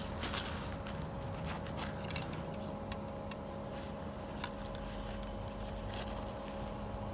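Paper towel crinkling and light clicks as a metal engine oil dipstick is wiped, slid back into its tube and drawn out again, over a steady low machinery hum.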